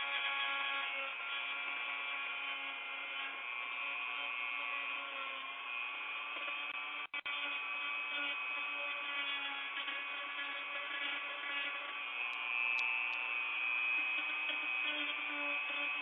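Electric power tool running continuously with a steady whine. It sounds thin and narrow, as heard through a Ring doorbell's microphone, and cuts out for a split second about seven seconds in.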